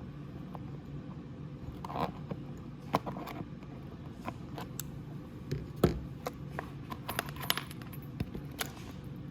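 Small pliers clicking and scraping on a metal nut as it is loosened from a charging port, with irregular light metallic clinks; the sharpest clink comes about six seconds in.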